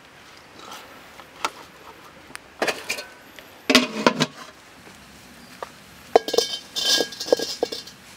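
Light knocks, then an aluminium steamer lid clattering as it is set onto the pot about halfway through. Near the end a metal ladle clinks against a steel wok, the metal ringing briefly after each strike.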